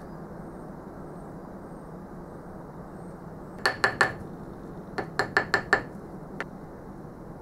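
Wooden dowel rapping a pattern set in a sand-mould half, loosening it for drawing: three quick sharp taps a little over halfway through, then five more in quick succession a second later and a last faint one. A steady low hum runs underneath.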